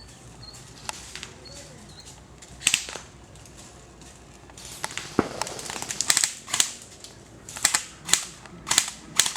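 Airsoft guns firing sharp single pops: a close pair about three seconds in, then a quicker irregular run of shots through the second half.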